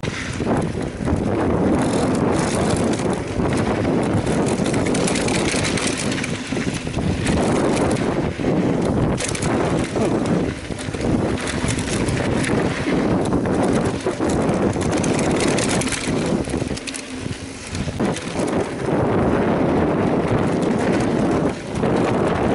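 Mountain bike riding downhill on a trail: a steady rush of wind on the microphone mixed with tyre noise and frequent rattles and knocks from the bike over rough ground, starting suddenly as the ride gets under way.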